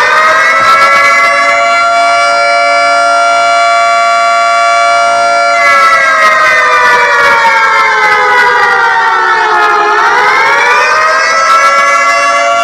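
Outdoor warning siren (tornado/civil defense siren) sound played by a siren app, wailing loudly. Its pitch rises about a second in and holds, jumps up suddenly about five and a half seconds in, slides slowly down, and climbs again near the end.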